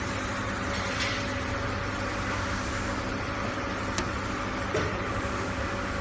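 Induction melting furnace running, a steady hum and hiss with a few constant tones in it. A single sharp click comes about four seconds in.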